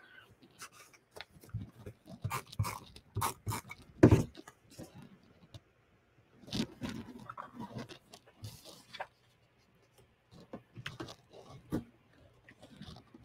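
Photo prints and cardstock being slid, shuffled and pressed down on a paper layout on a tabletop: scattered soft rustles and taps, with a sharper knock about four seconds in.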